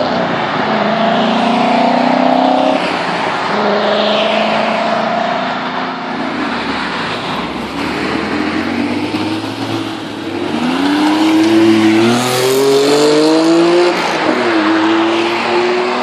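Several high-performance sports car engines revving and accelerating hard in turn. The engine note holds high at first, then climbs steadily in pitch and drops back twice with quick upshifts in the last third.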